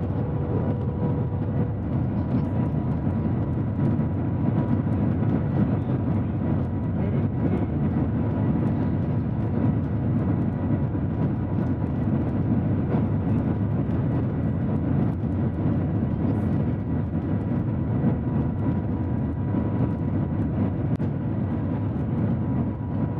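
Shanghai Maglev train running at speed, heard inside the passenger cabin: a steady low rumble with a faint high, even whine above it.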